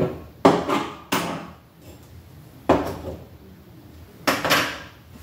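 A blender cup being detached from its base and handled: five separate clunks and knocks with short fading tails.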